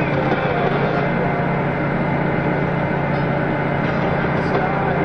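Steady drone of a heavy farm vehicle's diesel engine running, with music playing faintly along with it.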